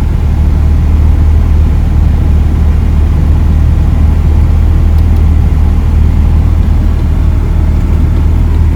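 A 1990 Mazda RX-7's rotary engine running steadily at idle, a loud, even low hum, with the air conditioning switched to maximum.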